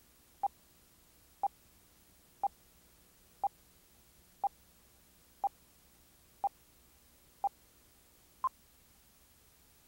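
Countdown leader beeps on a videotape spot reel: nine short tone beeps, one each second, the last one a little higher in pitch.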